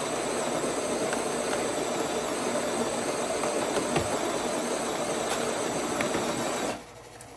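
Spinn coffee maker's built-in grinder running steadily, then cutting off suddenly near the end. It is the normal grind sound that means all the beans were pulled through, without the hollow sound that would mean they were not.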